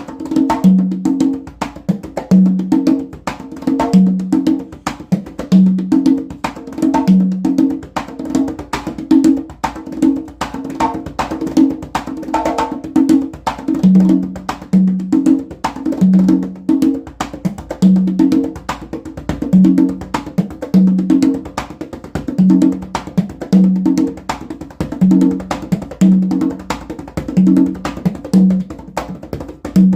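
Congas played by hand in a steady Latin rhythm: open tones on two drums, one lower and one higher, mixed with sharp slaps and muted strokes, with no other instruments.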